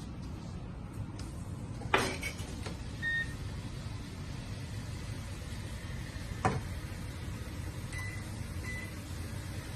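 Kitchen appliance or stove giving three short high electronic beeps, one about three seconds in and two close together near the end, over a steady low hum. Two sharp knocks of cookware come about two seconds in and midway.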